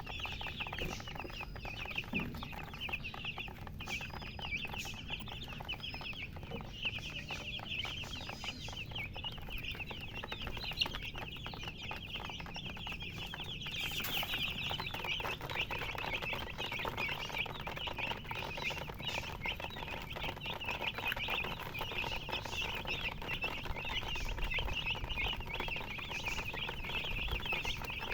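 A brood of domestic chicks peeping nonstop, many short, high calls overlapping into a continuous chorus.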